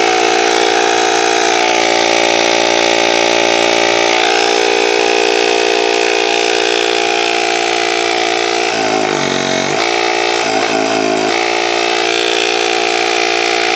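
Dunobil Luft Uni PRO cordless battery tyre compressor running, its electric piston pump giving a loud steady hum. The pitch sags twice for about a second, around nine and eleven seconds in.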